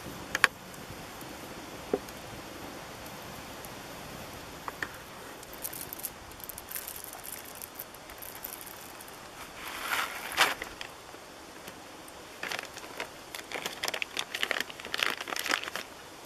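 Kraft-paper coffee bag crinkling as it is handled and opened, with coffee beans rattling into a stainless steel hand coffee grinder. A few sharp clicks come first, then bursts of crinkling and rattling grow busier in the second half.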